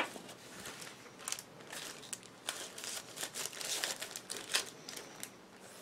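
Clear plastic craft packaging crinkling and rustling in the hands: a run of faint, irregular crackles.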